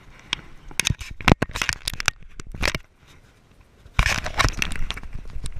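Hands handling a camera right at its microphone: a run of sharp knocks and clicks in the first three seconds, then from about four seconds in a dense stretch of rubbing and scraping on the housing.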